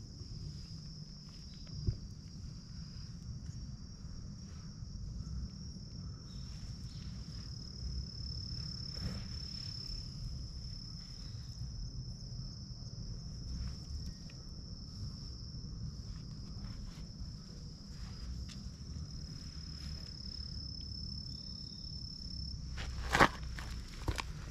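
Steady, high-pitched drone of insects, over a low rumble and a few faint clicks. A sharp knock stands out near the end.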